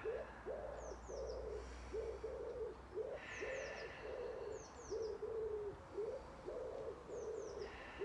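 A pigeon cooing over and over in short low notes, about two a second, with a small bird giving short high chirps, in falling pairs, a few times.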